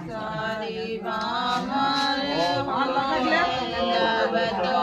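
Several voices chanting together in a drawn-out, wavering melody, the ritual chanting of a Hindu wedding ceremony.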